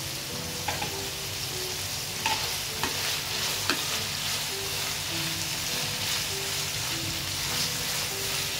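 Marinated mutton mince sizzling in oil in a nonstick frying pan over a high flame while it is stirred with a spatula, with a few sharp knocks of the spatula against the pan in the first four seconds.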